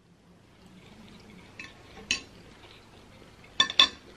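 Metal fork and knife clinking against a plate: one clink about two seconds in, then two quick clinks near the end.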